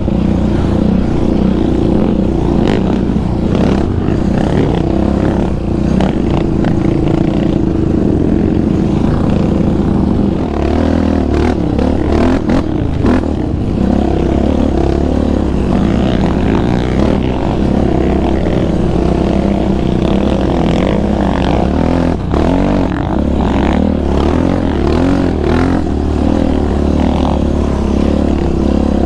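Yamaha Raptor 700R quad's single-cylinder four-stroke engine running steadily under throttle, heard close up from the rider's seat, with a few small rises and falls in pitch after the middle.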